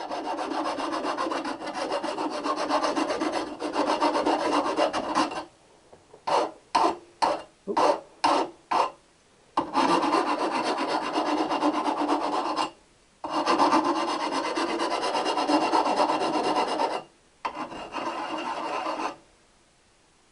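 Rasping of a metal-cutting or smoothing tool on a steel motorcycle exhaust pipe. It comes in long steady runs of several seconds each, broken about a third of the way in by a quick series of short strokes, and stops shortly before the end.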